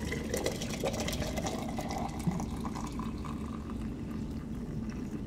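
Boiling water poured from a kettle into a quart glass jar of dried oat straw, a steady stream filling the jar toward the top.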